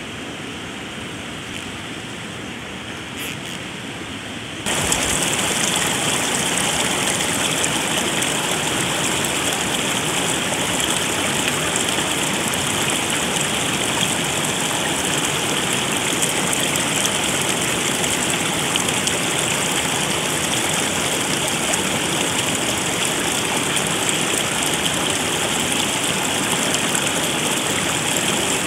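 Rushing stream water, a steady hiss. About five seconds in it jumps suddenly louder and brighter and then holds steady.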